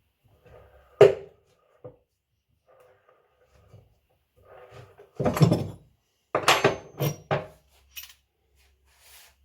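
Tools knocking and clanking on metal while the old drum bearings of a washing machine tub are worked out: one sharp strike about a second in, then a quick series of heavy knocks between five and seven and a half seconds in.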